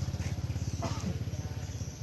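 A small engine, motorbike-like, running with a fast, even low pulse that eases off near the end. A short high squeak sounds about a second in.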